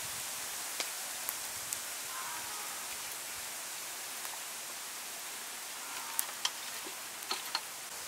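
A steady hiss with scattered small clicks and taps, about seven in all and most of them in the second half, from bamboo skewers and raw water snakes being handled over a metal tray.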